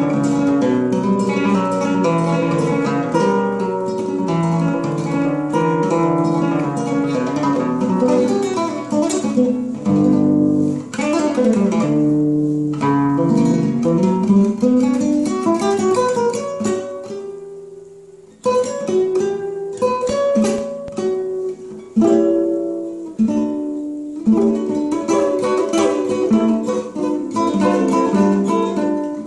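Solo acoustic classical-style guitar played fingerstyle in an improvisation: quick runs of plucked notes and chords, thinning to a single note that dies away about two-thirds of the way through, then picking up again with sharp struck chords.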